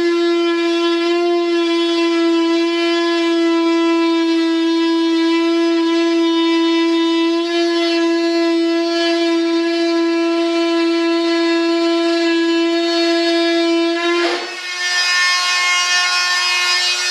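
Handheld rotary tool running at high speed, a steady high-pitched motor whine as it trims the edge of a cured resin mold. Near the end it dips briefly, then picks up again with more grinding hiss as it bites into the material.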